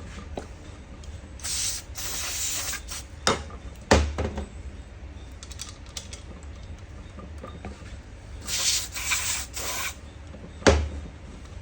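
Workbench sounds from diesel fuel pump repair: two hissing bursts, each about a second and a half long, and three sharp knocks. The loudest knocks come about four seconds in and near the end.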